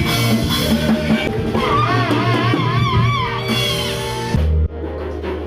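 Gospel praise band playing: drum kit, guitar and bass under a melody with a wide vibrato in the middle. Near the end the drums and high parts drop out, leaving a held low chord.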